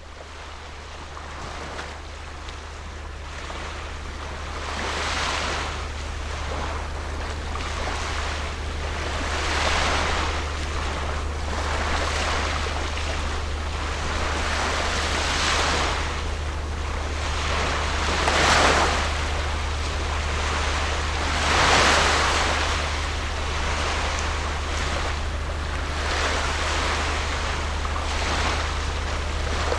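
Water washing in noisy surges every few seconds, with wind on the microphone and a steady low rumble underneath. It grows louder over the first several seconds.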